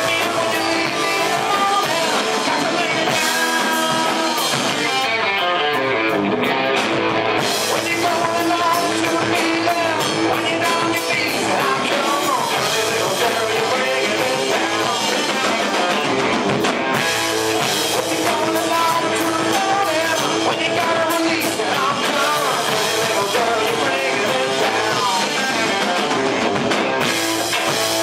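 A live rock band playing a song with a singer and electric guitar, loud and continuous.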